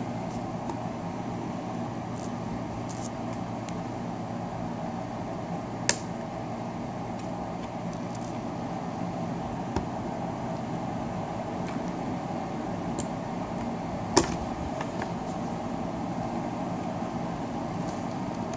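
Sharp plastic clicks and snaps from the casing of a Xiaomi Yi 4K action camera being pried with a plastic trim tool, loudest about 6 s and 14 s in, with a few fainter ones between. Under them runs a steady low hum.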